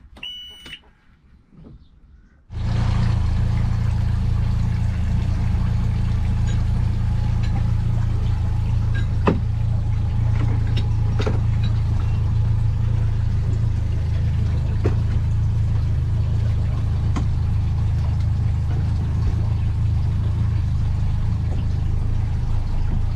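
Motorboat engine running steadily, heard from on board, cutting in suddenly about two and a half seconds in and holding an even low hum, with a few light knocks. Before it, a brief high chirp in the quiet.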